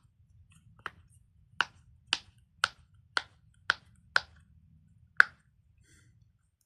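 A fidget toy being worked by hand: a run of about eight sharp snaps, roughly two a second, with a longer gap before the last one.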